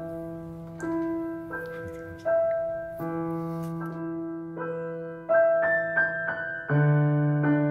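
Slow solo piano music: single notes struck about every three-quarters of a second over a sustained low note, with a fuller chord coming in near the end.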